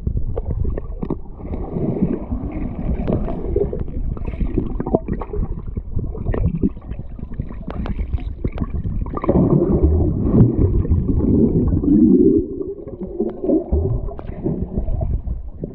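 Muffled underwater gurgling and rumbling of stream water, heard through a submerged camera, with scattered clicks and knocks as a swimmer moves close by. It grows louder from about nine seconds in to about twelve.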